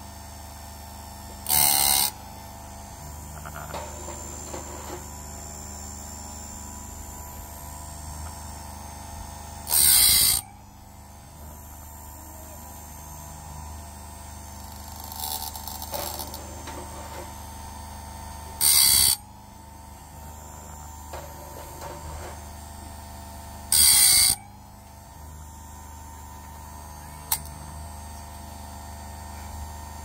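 Electric grinding-wheel blade sharpener running with a steady hum, its wheel coming down on the teeth of a sawmill bandsaw blade four times, each grind lasting about half a second. Between the grinds there are faint scrapes as the blade is slid on to the next tooth.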